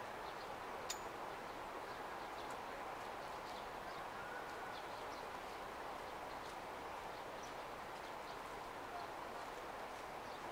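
Steady outdoor city ambience, an even background hum, with scattered faint light clicks and one sharper click about a second in.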